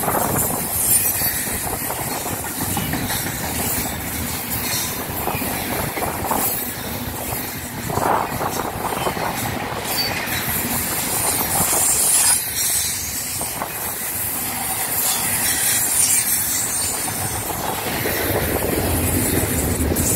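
Double-stack container train's well cars rolling past at track speed: a steady rumble of steel wheels on rail with occasional clacks.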